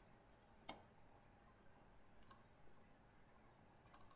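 Faint computer mouse clicks over near-silent room tone: a single click about two-thirds of a second in, then quick pairs of clicks near the middle and near the end.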